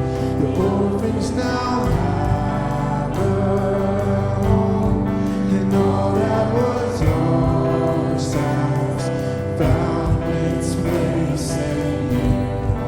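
Live contemporary worship song: a band with guitar accompanying voices singing together, running on steadily.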